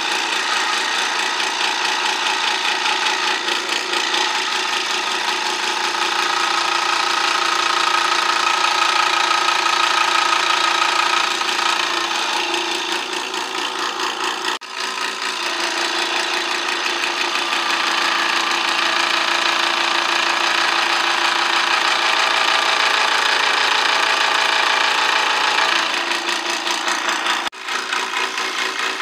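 Benchtop electric scroll saw running and cutting through a wooden board, its blade stroking up and down in a fast, steady rhythm. The sound breaks off very briefly twice, about halfway and near the end.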